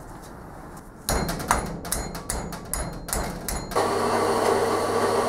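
A quick run of sharp metallic knocks and clatter, then, about four seconds in, a bandsaw starts cutting: a steady, distant running sound with a low hum under it.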